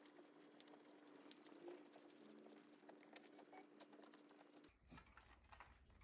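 Shiba Inu crunching dry kibble, with faint, quick crisp crunches and clicks.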